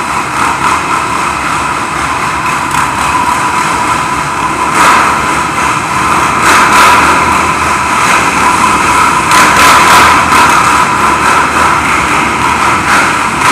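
Sport ATV engines revving and running hard as the quads drift in tight circles on smooth concrete. The sound echoes in an enclosed garage and swells louder several times.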